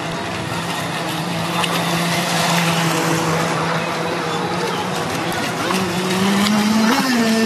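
Small engine of a radio-controlled model cabin cruiser running at a steady high buzz, its pitch rising a little about three-quarters of the way in and then wavering as the throttle changes.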